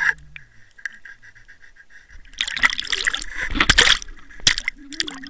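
Water splashing and churning around an underwater camera as it nears or breaks the surface. Irregular rushes of splashing start about two seconds in, with sharp knocks against the housing, and a couple of single clicks follow near the end.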